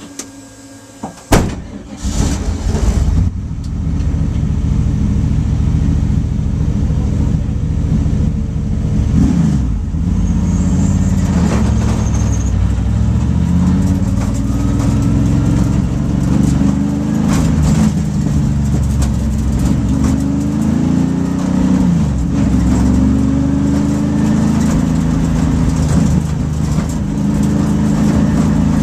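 The LT1 V8 of a 1994 SCCA World Challenge Camaro race car heard from inside the cockpit: a sharp click about a second in, then the engine starts and runs loud and steady. Its revs rise and fall again and again as the car drives off.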